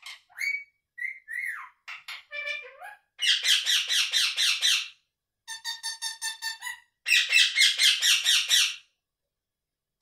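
Indian ringneck parakeet calling. A few short whistled and gliding chirps come first, then three runs of rapid harsh squawks, about seven a second, each lasting one to two seconds with short pauses between.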